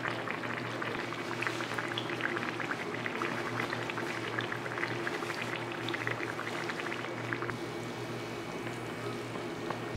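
A neyyappam, a plantain and jaggery batter cake, deep-frying in hot oil: a steady crackling sizzle of many small pops, thinning out near the end as the cake is lifted from the oil.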